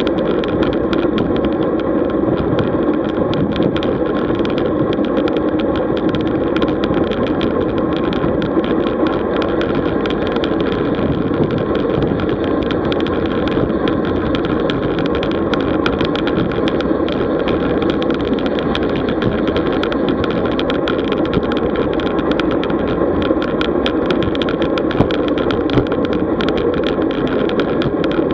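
Steady rush of wind and tyre noise from a road bicycle being ridden, heard on the ride camera's microphone, with scattered light clicks.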